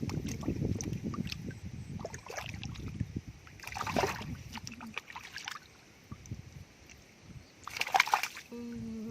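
Hands working through mud and muddy water, with low sloshing at first, then two louder splashes about four and eight seconds in. A short steady pitched tone comes just before the end.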